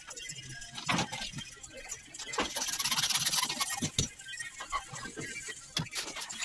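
Hacksaw cutting plastic water pipe, with about a second and a half of quick sawing near the middle, and sharp knocks of pipe and fittings being handled before and after.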